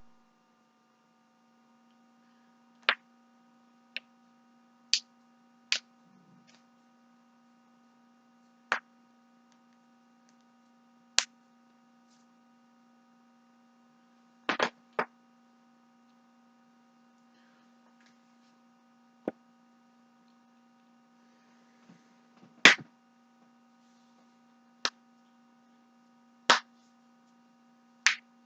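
Neck joints cracking: about a dozen sharp, single pops at irregular intervals, a quick double pop about halfway through and the loudest pop about two-thirds of the way in. A steady low hum runs underneath.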